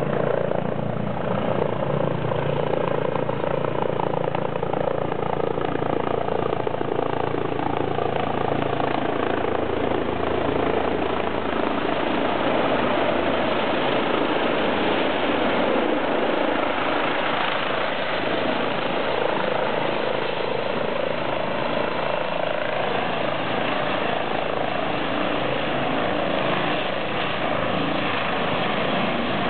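Eurocopter EC135 twin-turbine helicopter with a shrouded Fenestron tail rotor, steady and loud as it descends, hovers and sets down on the helipad. A low hum under the rotor noise fades about ten seconds in.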